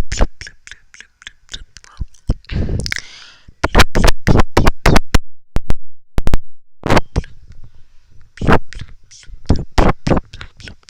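Wet mouth clicks and pops made close to a microphone, coming in quick irregular runs with short pauses between them. A short breathy sound comes about three seconds in.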